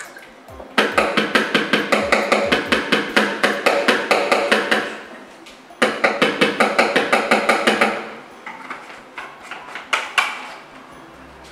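A plastic bottle of leak-repair liquid being shaken hard in two bouts, a quick even rattle and slosh of about five or six strokes a second, followed by a few clicks and knocks as the bottle is handled and opened.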